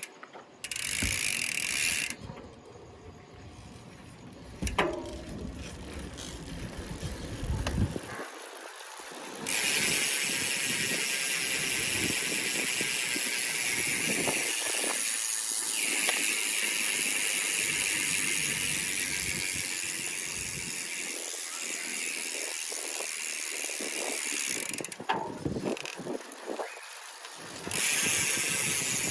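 Novatec mountain-bike rear hub freewheeling: the pawls ratchet as a fast, even buzz, which the owner calls deep compared with ARC hubs. It comes in a short burst near the start, then runs steadily for most of the rest, dropping out briefly near the end. A low rumble is under the quieter early stretch.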